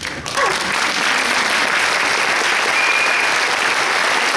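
Theatre audience applauding, setting in about a third of a second in and holding steady, with a brief high whistle about three seconds in.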